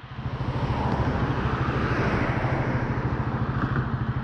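Motorcycle engine running steadily with an even, rapid pulsing exhaust beat, under a steady rush of wind.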